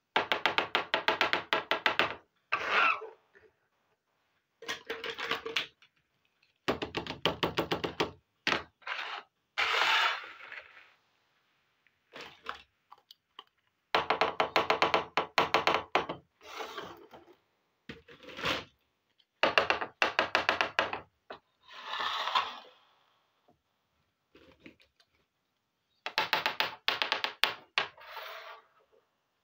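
Small plastic toy kitchen pieces being handled and set down on a hard surface: bursts of rapid plastic clicking and rattling a second or two long, with a few softer rubbing sounds, separated by silent gaps.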